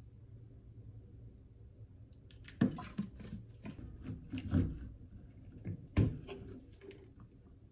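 Plastic seasoning bottles handled on a kitchen counter: a few knocks and clicks, the loudest about two and a half seconds in, near halfway, and about six seconds in, after a quiet start.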